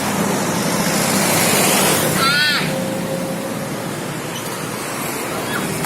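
A road vehicle passing close by: a rush of engine and tyre noise that swells to a peak about two seconds in, then eases off. A brief wavering high cry sounds at the peak.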